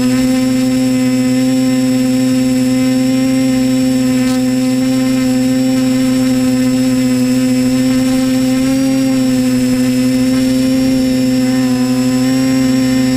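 Disco Pro drone's electric motors and propellers running in flight: a loud, steady hum at one even pitch, wavering only slightly.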